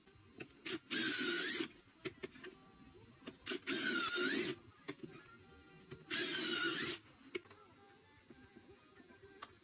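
Electric drill in a drill guide stand boring three short holes into solid walnut drawer fronts. Each run lasts under a second, and the motor's whine sags as the bit cuts and picks up again. Small clicks and knocks from handling the guide and wood come between the runs.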